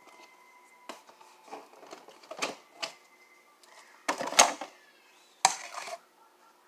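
Handling noises from slime-making as activator is added: scattered clicks and taps, then two louder short scraping, rustling bursts about four and five and a half seconds in.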